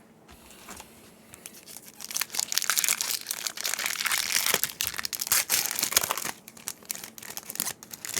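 Foil Yu-Gi-Oh booster pack wrapper crinkling and crumpling in the hands, quiet at first, then a dense run of crackling for about four seconds that thins to scattered crinkles near the end.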